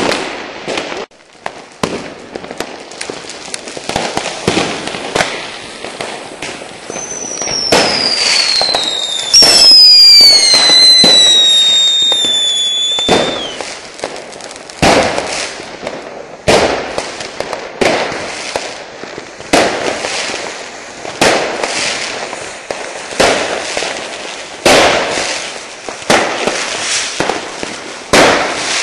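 New Year's Eve fireworks going off at close range: a string of bangs and crackling, with several whistling fireworks sounding together and falling in pitch about a third of the way in. After that the bangs come at a regular pace, about one every second and a half.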